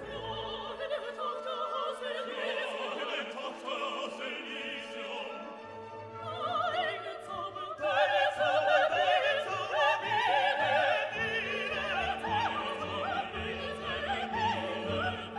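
Background classical music: an operatic voice singing with a strong vibrato over an orchestral accompaniment, growing louder about eight seconds in.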